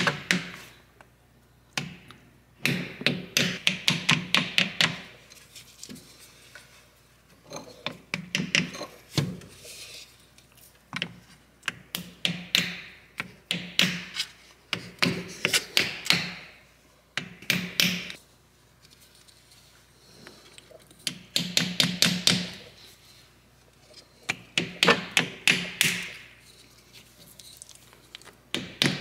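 Hammer striking a small hardwood block to drive a new ABS tone ring onto an axle's CV joint housing. The taps come several a second, in short runs with pauses between, working around the ring.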